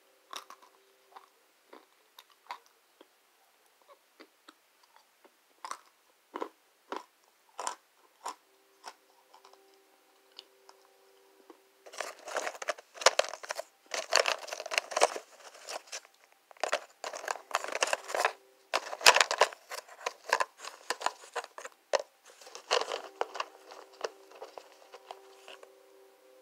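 Dry kudzu starch chunks bitten and chewed close to the microphone: scattered single crunches for about the first ten seconds, then dense, loud crunching from about twelve seconds in until near the end.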